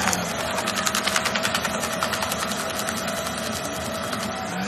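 A small motorized machine running steadily, with a fast ticking rattle over the first couple of seconds.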